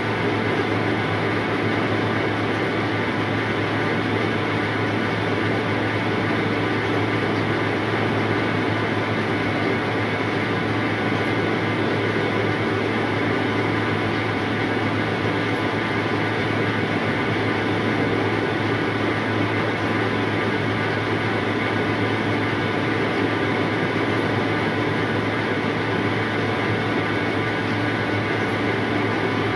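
Rice seed-sorting machine running steadily: a constant mechanical drone with several fixed tones that does not change.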